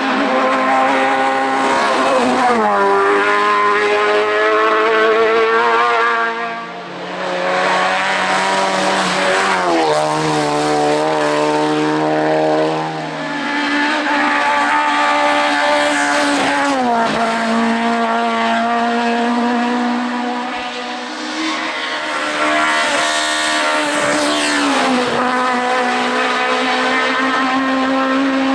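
Race car engines at full throttle up a hill climb course, each rising in pitch and then dropping sharply at gear changes, several times over. The loudness dips briefly between runs as cars pass.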